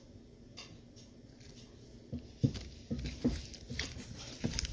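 Foam-bead slime being squeezed and stretched by hand: small scattered clicks and pops, then louder irregular squelches and knocks from about two seconds in.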